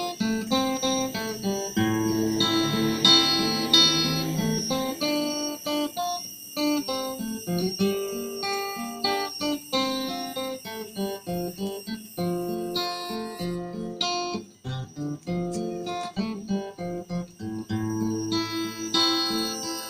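Background music: a plucked acoustic guitar playing a run of short notes and strums.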